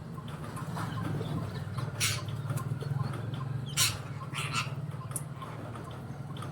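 Birds making short, scratchy sounds three times, over a steady low hum.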